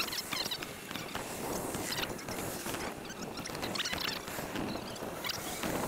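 A bicycle rattling and clicking as it rides along a sidewalk, over a steady rush of wind and road noise, played back sped up.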